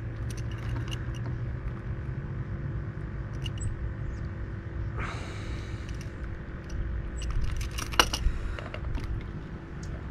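Light clicks and rustles of a hook being worked out of a large speckled trout's mouth in a rubber-mesh landing net, with a brief rushing noise about halfway and a cluster of sharper clicks and knocks near the end. A steady low rumble runs underneath.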